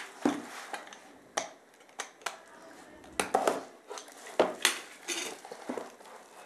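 Cardboard retail box being handled and its end seal cut open with a box cutter: a string of irregular sharp clicks and taps with brief scrapes in between.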